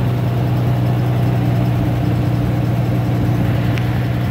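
Original engine of a 1937 Dodge fire truck idling steadily, an even low hum.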